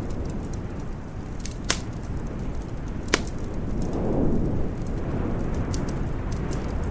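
Wood fire crackling in a fireplace, with scattered small ticks and two sharp, loud pops a little under two seconds in and again about three seconds in. Under it is a steady low rumble that swells briefly around four seconds in.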